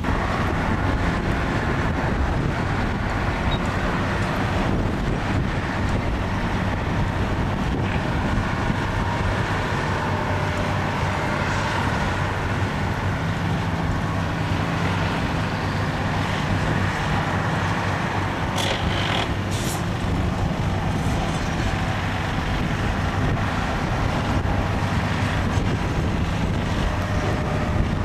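Heavy diesel truck engine running steadily, with two short hisses about two-thirds of the way in.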